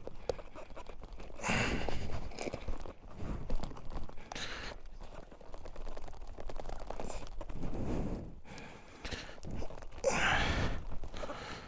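Heavy, strained breathing: several long exhales a few seconds apart from a man straining to force a tire plug insertion tool into a tubeless motorcycle tire.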